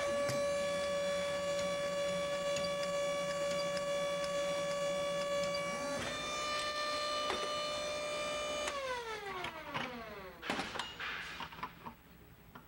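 Hydraulic concrete-vibrator motor running on a hydraulic test stand during a slip test, a steady high whine; the slip reads within range, so the drive gear is sealing well. About nine seconds in the flow is cut and the whine winds down, falling in pitch over a second or so, followed by a few clicks and knocks.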